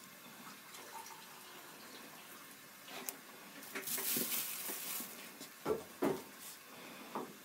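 Quiet kitchen handling: a few soft knocks and rustles as olives are pressed onto sauced pizza dough in a pan, with a brief hissing noise about four seconds in.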